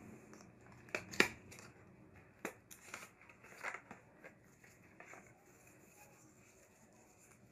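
Product packaging being opened by hand: a cardboard box and a plastic tray clicking and scraping, the loudest click about a second in, with a few more over the next four seconds and a soft rustle of the wrapping.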